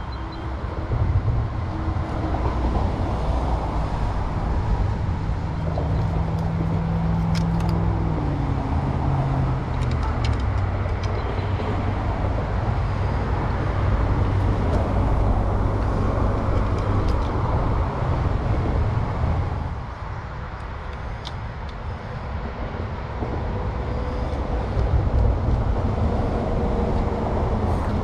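A motor vehicle engine running with a steady low rumble, its pitch dropping about eight seconds in, and the level easing off briefly about twenty seconds in.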